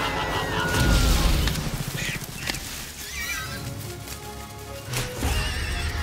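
Film soundtrack: dramatic score with sound effects, a low rumbling hit about a second in, a few sharp knocks, and shrill, warbling animal cries like a whinny.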